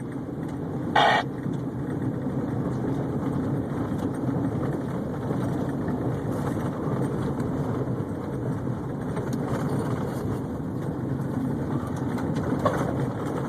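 Steady engine and road noise heard from inside a moving car, with a brief higher-pitched blip about a second in.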